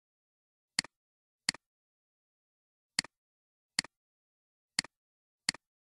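Computer mouse button clicked six times, each click a quick press-and-release double tick, falling roughly in three pairs.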